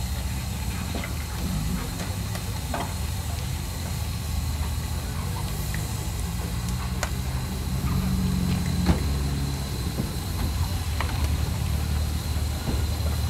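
Fowler steam roller running as it rolls slowly over tarmac: a steady low rumble with scattered light clanks and knocks.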